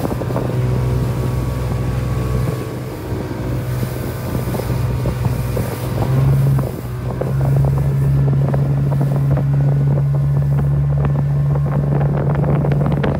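Speedboat engine droning steadily under way, with wind buffeting the microphone. A run of sharp knocks comes near the end.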